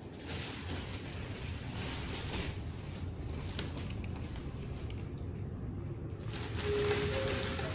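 Clear plastic carrier bag rustling and crinkling in bursts as it is handled, over a steady low hum.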